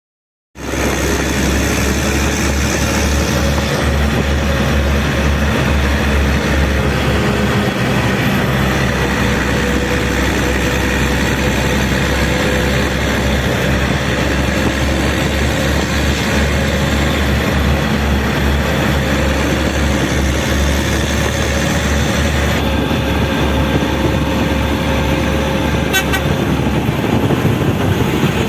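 Heavy vehicle driving along a highway: loud, steady engine and road noise with a strong low rumble, starting suddenly about half a second in.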